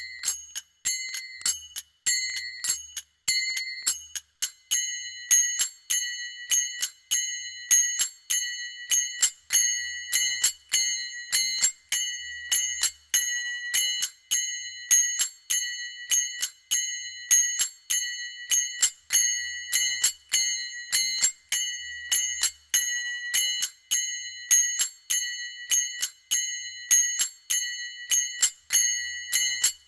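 Manjira, a pair of small brass hand cymbals, struck together over and over in a steady looping rhythm. Each strike gives a sharp clash that rings on in high bell-like tones.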